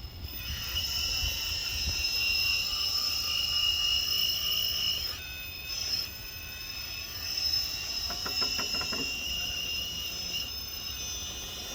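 Brushless motor and drivetrain of an RC rock crawler (Holmes Hobbies Revolver 1400kv) whining as it drives, the pitch shifting with the throttle, easing off briefly about five seconds in. A quick run of ticks comes about eight seconds in.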